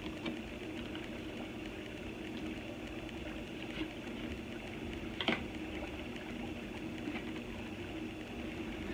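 Steady low hum and hiss of a small room, with a single sharp click about five seconds in.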